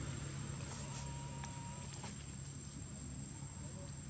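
Insects trilling in one steady high-pitched drone, over a low hum and a few faint clicks.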